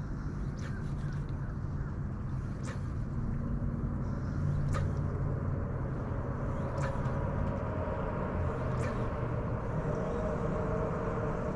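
Steady drone of a motorboat engine on the river, growing a little louder in the second half. A sharp short tick sounds about every two seconds.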